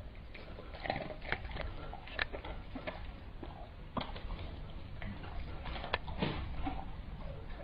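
A dog chewing and smacking on small bits of food fed to it by hand, with scattered clicks and taps of fingers and food on a plate and tabletop.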